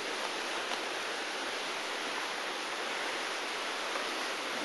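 Steady rushing of a river: an even, unbroken wash of water noise.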